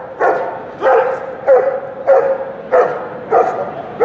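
Trained K9 attack dog barking in a steady, regular series, about one and a half loud barks a second.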